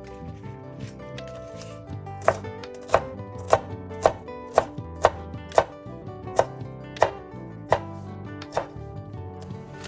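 Kitchen knife chopping on a cutting board: about eleven sharp strokes, roughly two a second, starting about two seconds in.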